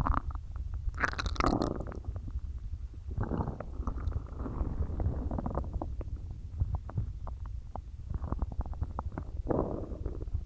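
Human stomach gurgling and rumbling, full of soda and swallowed air: irregular bubbling gurgles about a second in, again from about three to five seconds and near the end, with scattered sharp pops in between over a low steady rumble.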